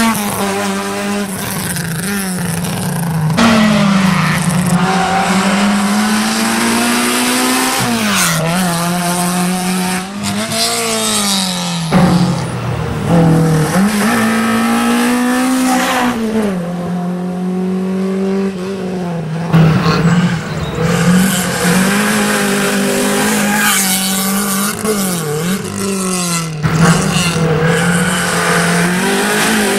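Racing hatchbacks' petrol engines revving hard through a hairpin one car after another, the pitch dropping and climbing again and again as the drivers brake and change gear.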